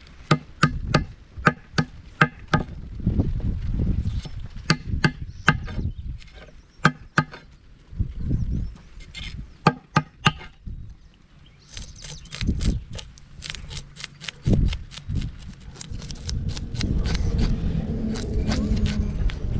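A steel knife struck in quick sharp strokes against a hard surface, about two a second with short pauses, then from about twelve seconds in a knife scraping the scales off a fish in fast hissing strokes. Wind rumbles on the microphone throughout.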